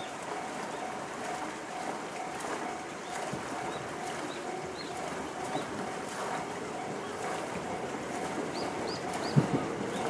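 Japanese railway level-crossing warning bell (the JR standard electronic tone) ringing steadily at about two dings a second, warning that a train is approaching. A few short high chirps sound near the end, and a sharp thump about nine seconds in.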